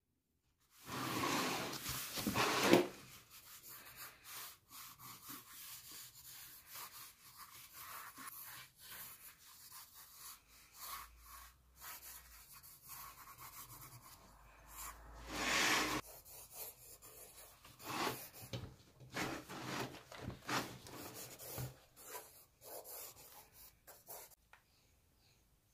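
Graphite pencil scratching and rubbing across cheap spiral-bound sketchbook paper in many short strokes. Louder rustling near the start and again about fifteen seconds in.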